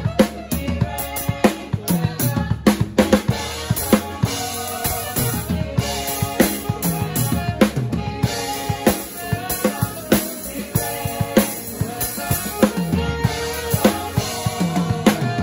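A drum kit, with Sabian cymbals, played in a steady full-band gospel groove: snare, bass drum, rimshots and cymbals, over keyboard and piano chords.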